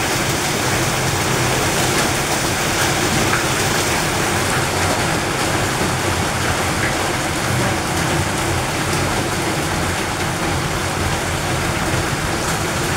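Heavy rain pouring down steadily, an even hiss that holds at one level throughout.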